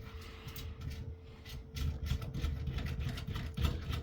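Steel side cutters gripping and turning the metal nuts on a satellite receiver's coax connectors: irregular metallic clicks and scrapes over handling rumble, with a faint steady hum underneath.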